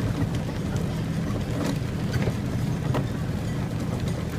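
Steady low engine rumble with occasional light rattles.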